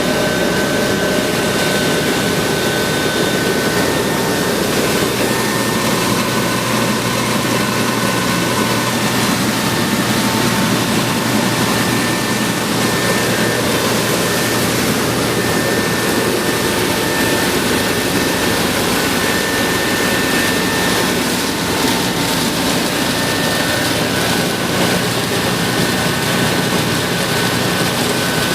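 Rice flour milling machine running: a loud, steady rushing noise with a faint high whine and a low hum.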